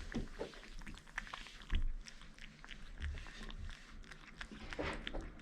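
Kittens eating, a quick irregular run of small chewing and lapping clicks, with one soft thump a little under two seconds in.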